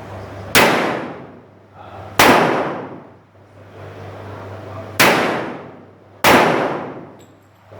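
Four revolver shots from a Smith & Wesson Model 29, fired at an uneven pace over a few seconds. Each shot is a sharp crack followed by about a second of echoing decay.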